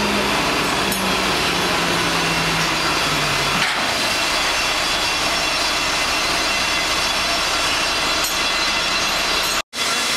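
Steady machinery noise from a mobile crane on a building site: a low engine hum that steps down in pitch and stops about a third of the way in, over a constant loud hiss. The sound cuts out for an instant near the end.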